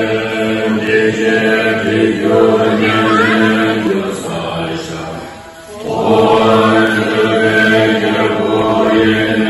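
Congregation of many voices chanting a Tibetan Buddhist prayer text in unison, on steady held pitches. The chanting thins and drops away for a breath about five and a half seconds in, then resumes at full strength.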